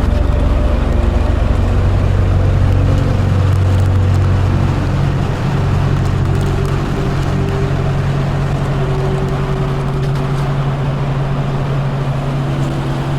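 Car engine and road noise from a moving vehicle, a steady low hum whose engine note shifts about five seconds in.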